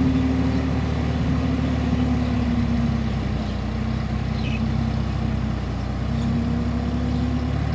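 Tractor engine running steadily under load, driving a rear-mounted rotary tiller through wet, muddy soil.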